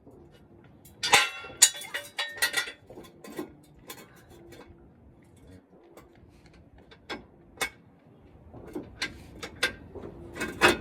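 Metal hand tools clinking and clicking: a quick run of sharp metallic clinks about a second in, a few scattered ticks, then another group of clinks near the end.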